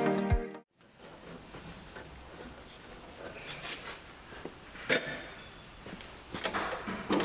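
Background music ending within the first second, then a spanner working on the clutch master cylinder's pipe union nut: small metallic clicks, one sharp ringing clink about five seconds in, and a few more clicks near the end.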